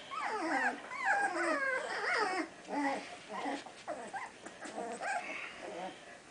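A litter of red poodle puppies whining and whimpering together: many high, sliding cries overlapping, busiest in the first couple of seconds, then thinning to scattered whines. The fussing is that of tired puppies, which the owner takes for wanting to go to bed.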